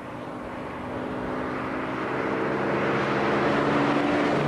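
Classic Jaguar XK coupé's straight-six engine running at a steady cruise as the car approaches along a road, the engine and tyre noise growing steadily louder as it draws near.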